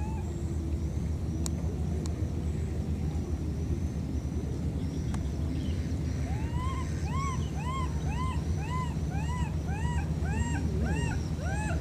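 A baby monkey crying: a run of short cries that each rise and fall in pitch, about two a second, beginning about halfway through. They sound over a steady low rumble.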